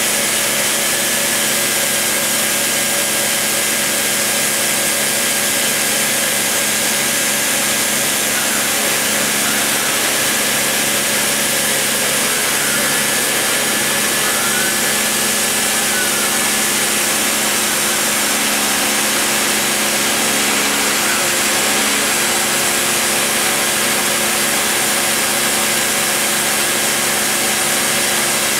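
Dremel rotary tool running at high speed under CNC control, its bit routing a groove into MDF: a steady whine with continuous cutting noise.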